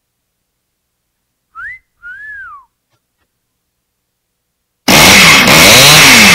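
A two-note wolf whistle: a short rising note, then a longer note that swoops up and falls away. About five seconds in, a much louder burst of dense noise follows.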